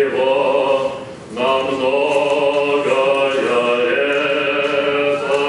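Small Orthodox church choir singing a cappella, several voices holding long sustained chords, with a brief breath pause about a second in before the next phrase.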